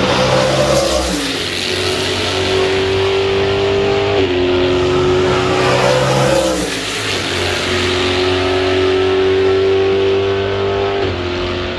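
Race car engines running at high revs along the circuit; the engine pitch falls away about a second in, around four seconds, near seven seconds, and again about eleven seconds in as cars pass and shift gears.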